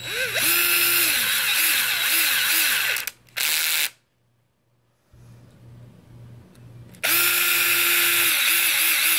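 Power drill with its clutch set, driving small screws into a plastic diff housing: a run of about three seconds, a short burst, then another long run about seven seconds in. The motor's pitch sags and recovers several times as the screws load it.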